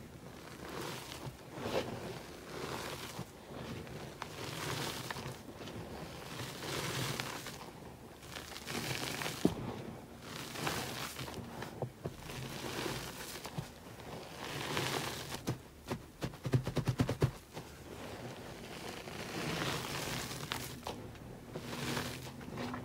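Loose powdered gym chalk being squeezed and stirred with the fingers: soft crunching swishes that come in repeated swells every second or two, with a quick run of crackles about two thirds of the way through.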